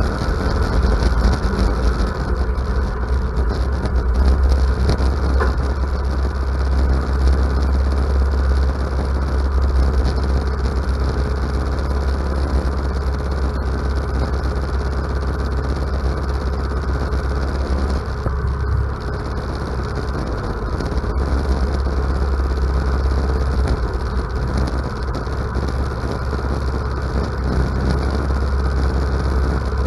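Ariens riding mower's engine running steadily, heard close up from a camera mounted on its hood; it changes briefly about two-thirds of the way through.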